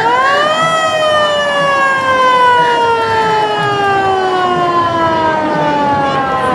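A siren wailing. Its pitch climbs quickly in the first second, then slowly falls for the rest of the time.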